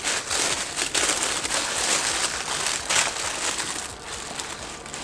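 Packaging crinkling and crumpling in the hands as an opened box's contents are handled: a dense rustle with sharp crackles, loudest in the first three seconds and easing off after about four.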